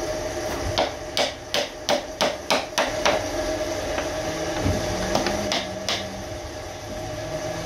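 Hammer driving small nails into a laminated chipboard panel: a run of sharp taps about three a second, a pause of about two seconds, then three more taps. A steady hum runs underneath.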